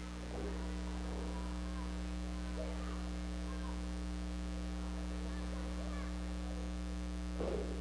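Steady electrical mains hum on the recording, getting louder about half a second in, with faint voices in the background and a brief louder shout near the end.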